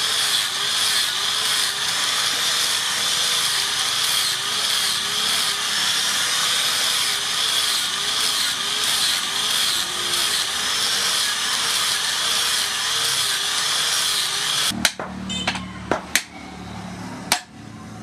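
Small electric angle grinder with a sanding pad running under load as it sands a wooden hammer handle, its pitch wavering up and down repeatedly. It stops suddenly about 15 s in, followed by a few sharp separate metallic clinks.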